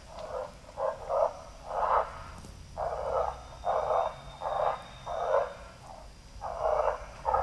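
FoxPro electronic predator caller playing a coyote pup call: short yelps repeated about one to two a second, with a brief pause near the end.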